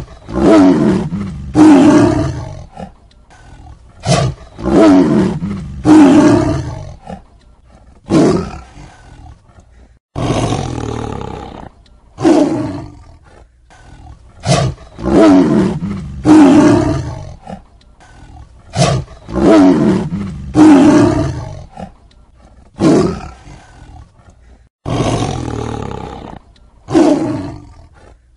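Tiger roaring again and again: loud roars of a second or two each, coming every couple of seconds with short pauses between, a few of them cut off abruptly.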